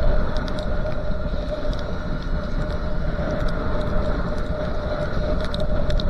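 Steady wind and road noise while riding a motorcycle along a wet road, with a constant hum and scattered light ticks.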